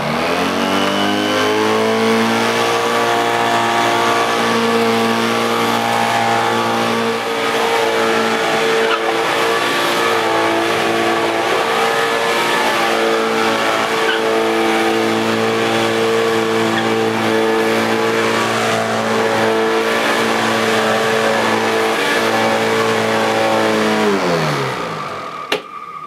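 1980s Electrolux 560 Electronic upright vacuum cleaner switched on. Its motor spins up over a second or two, then runs steadily on the carpet with a deep growl from the brush roll, which has no beater bars. Near the end it is switched off and winds down.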